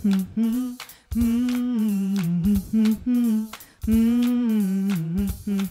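A woman humming a short repeating melodic phrase in a low register into a microphone: the bass part of a three-part hummed vocal warm-up. The phrase comes round about every three seconds, a long held note sliding down, then a few shorter notes.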